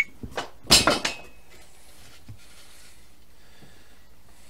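A sharp click, then a short clatter of wooden knocks about a second in, as a bench vise is opened and the pine workpiece in it is shifted and handled.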